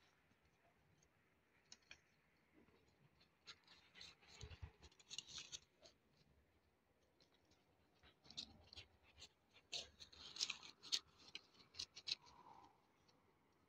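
Faint, irregular rustling and crackling of dry grass and twigs being moved through on foot, in two spells, a few seconds in and again in the last third.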